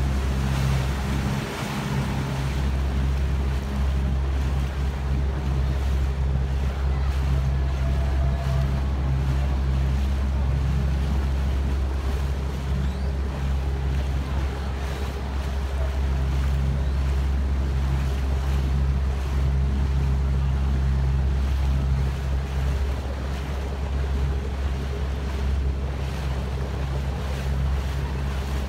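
A small motorboat's engine running steadily at low cruising speed, a constant low drone, with water washing along the hull and wind on the microphone.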